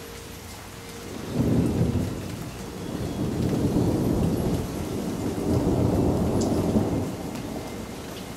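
Rain falling steadily, then a long roll of thunder about a second in: a low rumble that swells in several waves over some six seconds and eases near the end.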